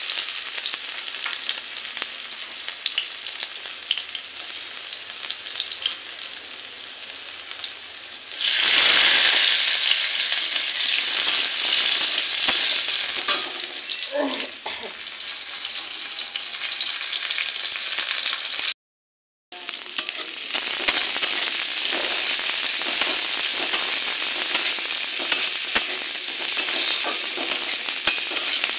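Onion, garlic and dried red chillies sizzling in hot oil in a steel kadai, stirred and scraped with a metal spatula. The sizzle gets suddenly louder about a third of the way in, and the sound cuts out completely for about half a second a little past the middle.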